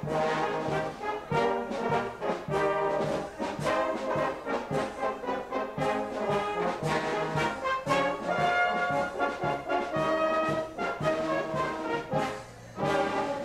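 Brass band playing, with trumpets, in a steady rhythm of short notes. There is a brief pause near the end before it plays on.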